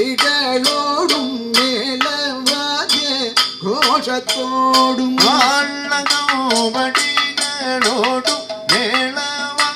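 Kathakali music: a male voice sings a slow, ornamented melodic line over a steady rhythm of drum strokes on the maddalam and chenda, with metallic percussion clinking along.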